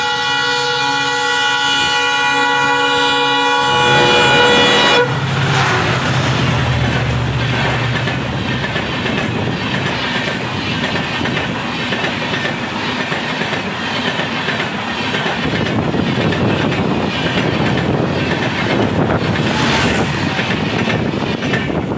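A WDP-4D diesel locomotive's multi-tone horn sounding one steady chord that cuts off about five seconds in. The express then passes close by: a low diesel rumble for a few seconds, then the coaches' wheels clattering rhythmically over the rail joints.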